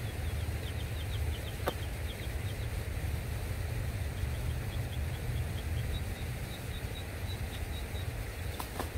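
A bird calling a rapid series of short, high chirps, about four or five a second, over a steady low rumble. There are two sharp clicks, one early and one near the end.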